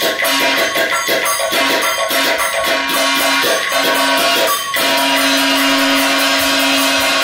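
Live Chinese opera band music: quick, irregular percussion strikes over a held pitched note. About two-thirds of the way through the strikes stop and one long steady note carries on.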